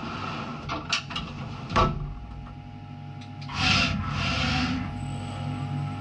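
Skyfire SVM1 CNC vertical machining centre: the enclosure's sliding door is shut, with a couple of sharp knocks in the first two seconds, over the machine's steady whine and hum. A burst of hissing comes about halfway through.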